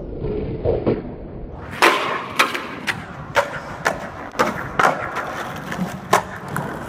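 Skateboard landing a hardflip down a three-stair with one loud sharp clack about two seconds in. The board then rolls on over concrete, its wheels rumbling, with a run of sharp clacks roughly every half second.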